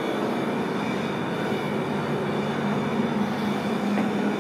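Steady mechanical drone with a low hum and a rushing noise, like large machinery or ventilation running nonstop; a faint tick about four seconds in.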